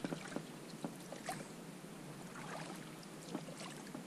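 Quiet water splashes and drips beside a small hand-propelled boat moving across calm lake water, with a few light knocks and clicks, no motor.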